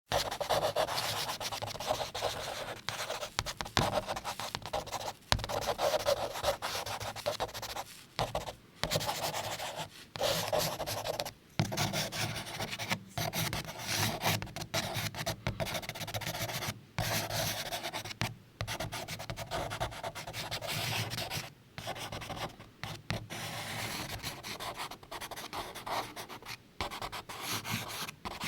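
Charcoal drawing on paper: a stick of charcoal scratching and rubbing across the sheet in continuous strokes, broken by short pauses every second or two.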